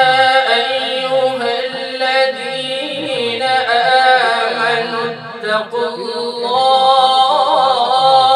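A man reciting the Quran in melodic tilawat style into a handheld microphone, drawing out a long phrase with wavering, ornamented pitch and a brief break about five seconds in.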